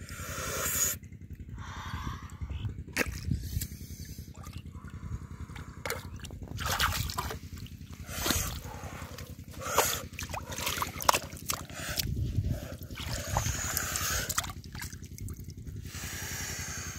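Shallow muddy water splashing and sloshing in irregular bursts as hands grope through it and pull out small fish. A steady low mechanical throb runs underneath.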